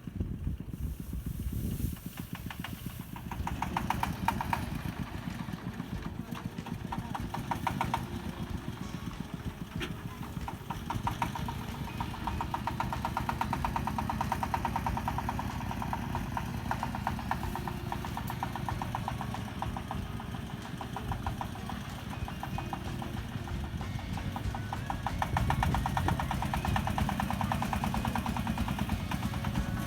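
Handheld rice-cutting machine's small engine running steadily, louder in the last few seconds.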